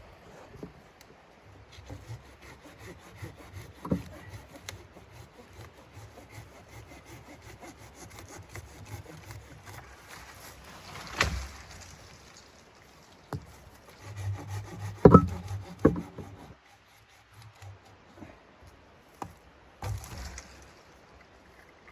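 Wood being handled: scraping and rubbing with irregular knocks, a loud knock about eleven seconds in and a cluster of knocks around fifteen seconds in.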